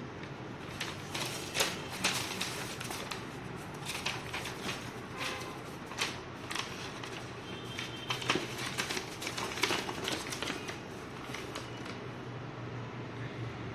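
Paper and card being handled: stickers, a printed card and a folded booklet picked up and opened, giving irregular crisp rustles and taps over a faint low hum.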